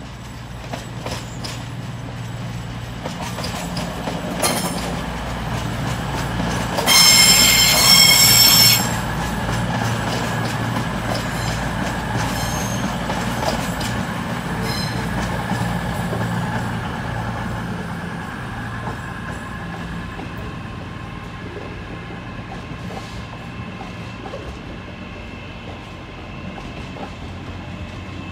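A CrossCountry Voyager diesel multiple unit running past over pointwork, its underfloor diesel engines giving a steady low hum that grows as it comes closer. About seven seconds in there is a loud, shrill, high-pitched note lasting just under two seconds.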